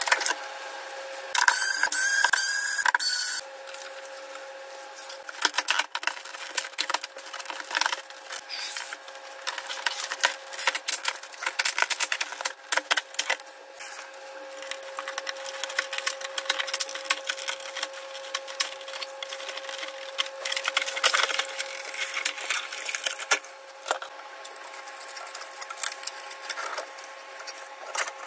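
Plastic housing of an MTEC MT32Q16 gaming monitor being taken apart by hand: a run of clicks, scrapes and rubbing as the stand and back-cover clips are worked loose, with a louder dense burst about two seconds in.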